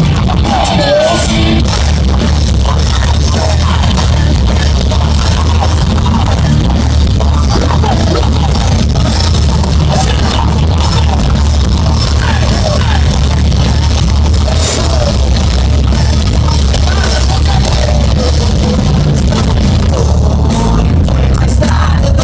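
Live heavy metal band playing loud, with a voice singing over it.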